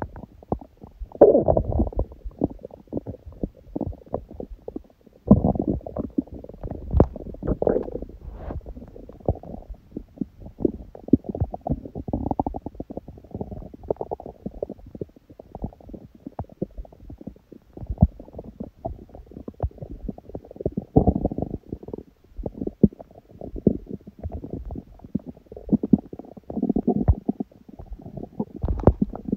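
A hungry, empty stomach growling: low rumbles under a running stream of small irregular pops and rattles, with louder gurgling swells every few seconds.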